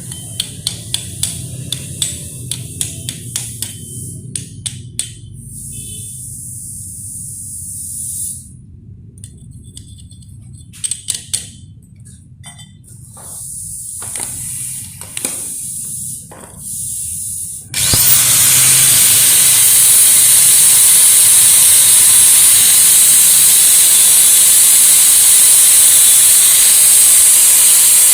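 A run of sharp taps, about three a second, then a few scattered knocks. About 18 seconds in, an electric welding arc strikes and runs as a loud, steady crackling hiss while a steel socket is welded to a pipe.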